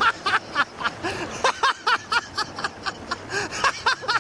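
A person laughing hard in rapid, high-pitched bursts, several a second.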